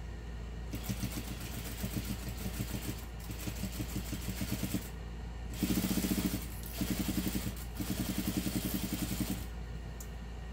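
Juki industrial sewing machine stitching a seam in short runs, with a rapid, even needle beat. It stops briefly twice, about five and six and a half seconds in, and stops again shortly before the end.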